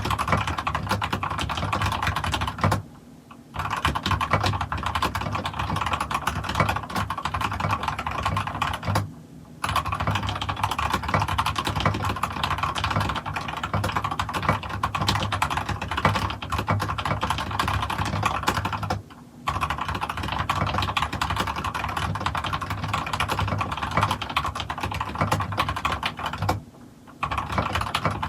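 Fast continuous typing on a Lofree Touch OE903 mechanical keyboard with Gateron Red linear switches, a dense run of key clacks that stops briefly four times.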